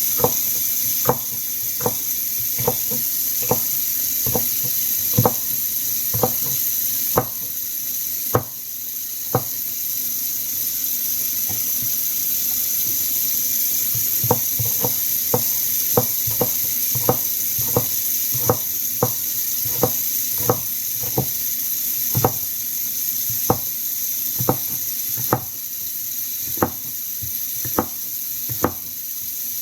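Kitchen knife chopping vegetables on a cutting board: sharp chops about once or twice a second, pausing for a few seconds midway, over a steady hiss of water.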